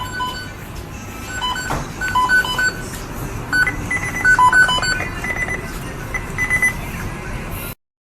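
A quick tune of short, high electronic beeps at a few different pitches, over a steady noisy background. It cuts off suddenly near the end.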